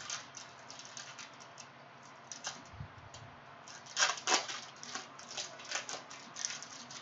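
Trading card pack wrapper crinkling and crackling as it is torn and unfolded by hand, in a run of small sharp crackles, with a louder cluster about four seconds in.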